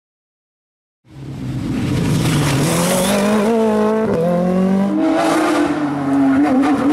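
Rally car engine at high revs, its pitch climbing and then dropping sharply with gear changes, about four and five seconds in. It fades in from silence about a second in.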